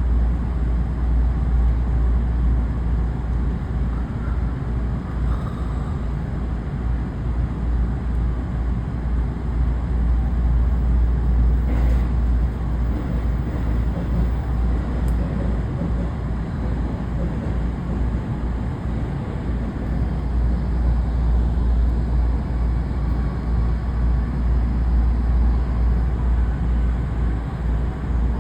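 A steady, loud low rumble of trains and station machinery at a railway platform, with no single approach or departure standing out.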